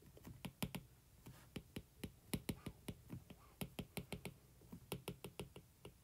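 Stylus tip tapping and clicking on a tablet screen while handwriting: an irregular run of light, sharp taps, several a second.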